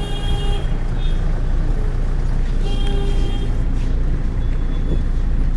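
Inside a moving city bus: steady low engine drone and road rumble. Twice, at the start and about three seconds in, a brief cluster of high, steady tones sounds over it.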